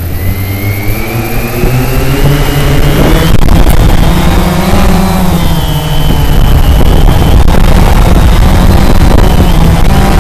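Cheerson CX-20 quadcopter's four brushless motors and propellers spinning up for takeoff, heard from a camera mounted on the drone itself. The whine rises in pitch and grows louder over the first few seconds as it lifts off. It then settles into a loud, steady buzz whose pitch wavers as the drone climbs and holds, over a heavy rumble of prop wash on the microphone.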